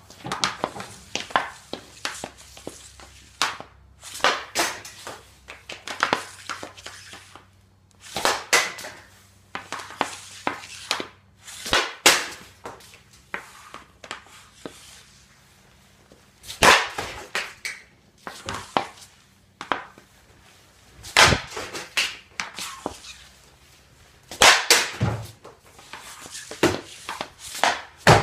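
Hockey shots: a stick cracking against pucks again and again, sharp hits in clusters every couple of seconds, some followed by a short ringing clatter as the puck strikes.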